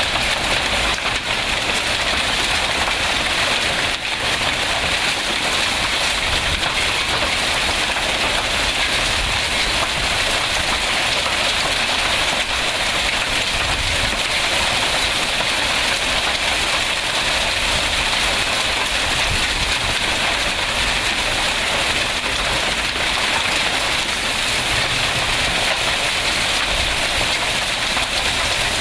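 Heavy rain mixed with hail pelting down, a loud, steady hiss and patter without a break.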